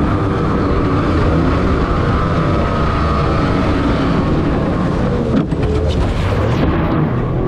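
Outboard motor on a racing aluminium dinghy running flat out, a steady high-revving drone with rushing water and wind noise. It wavers briefly a little over five seconds in.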